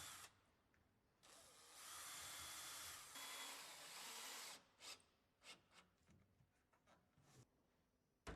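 Faint power drill running steadily for about three seconds, fixing the striking plate for a mortise latch, followed by a scatter of light clicks.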